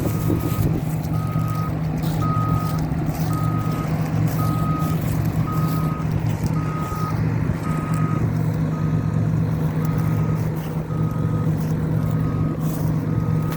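Combine harvester running with its diesel engine humming steadily while its reversing alarm beeps about once a second, the machine backing up.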